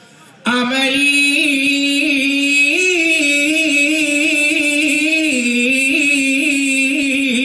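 A man singing a long solo line of a Duffmuttu song, held and ornamented with a wavering pitch, with no drums. It begins about half a second in, after a short pause.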